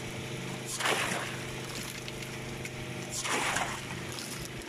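Water gushing and splashing in regular surges about every two and a half seconds from a Bunyip PA13 hydraulic ram pump test rig working off a 5 m standpipe fall. A steady low hum runs underneath.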